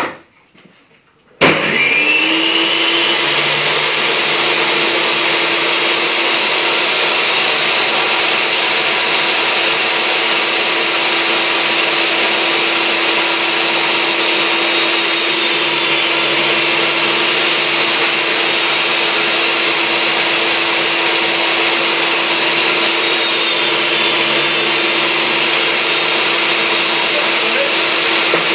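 Electric power saw switched on, spinning up with a short rising whine to a steady run. It cuts scrap timber twice, each cut a brief harsher stretch, about halfway and two-thirds through.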